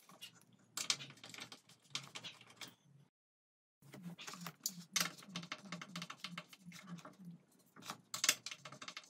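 Phillips screwdriver undoing screws on a treadmill's metal frame: small metal clicks and scrapes, which settle into a steady run of about three or four clicks a second as a screw is turned out. The sound drops out to silence for a moment about three seconds in.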